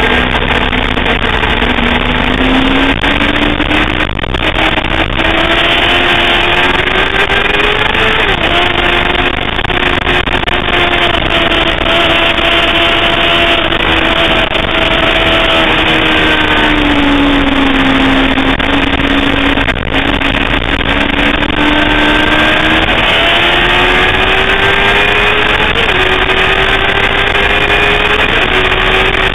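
Sportbike engine heard onboard at speed on a race track. Its pitch climbs and then drops abruptly twice, like quick upshifts, and falls slowly in the middle as the bike slows for a corner, all over a steady rush of wind noise.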